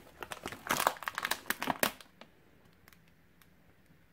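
Plastic beef jerky pouch crinkling as it is handled and turned over: a rapid run of crackles that stops about two seconds in.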